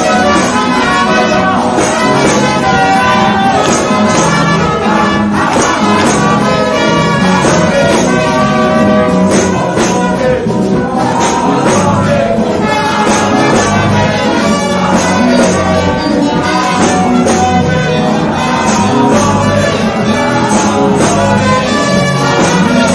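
Live gospel music: a woman singing through an amplified microphone over a band with a steady percussion beat.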